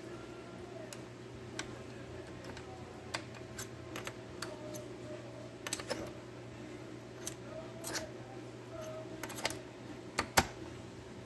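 Light, irregular metal clicks and taps from a small steel punch probing the shift forks and rails of a Tremec TR3550 transmission to line up their pin holes, with a few sharper clicks in the second half, over a steady low hum.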